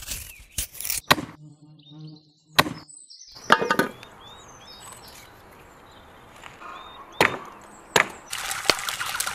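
A heavy knife chopping through a lamb carcass on a wooden block: a series of sharp, irregularly spaced chops, with birds chirping faintly between them. Near the end, a dense crackling sizzle of meat frying takes over.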